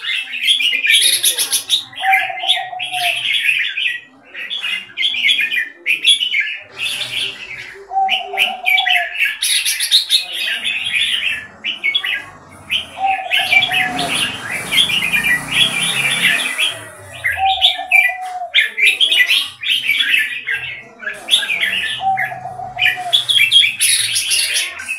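Red-whiskered bulbuls singing: dense, rapid chirps and warbled phrases with a short lower call repeating every few seconds. A rush of noise swells and fades about halfway through.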